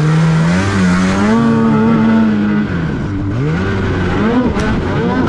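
Polaris Matryx mountain snowmobile's two-stroke engine running under throttle, its pitch rising and falling again and again as it revs. A single sharp knock comes near the end.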